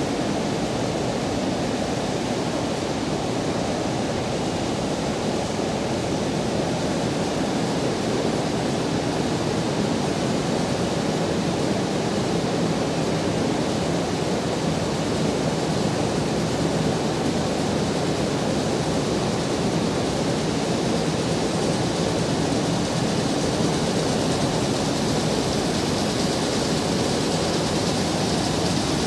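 Steady din of industrial machinery running in a tortilla production plant: an even, hiss-like noise with no distinct beat or tone, growing a little brighter near the end.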